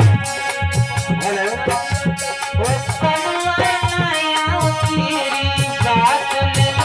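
Folk devotional music: a dholak drum plays a steady, driving rhythm under a sustained keyboard melody.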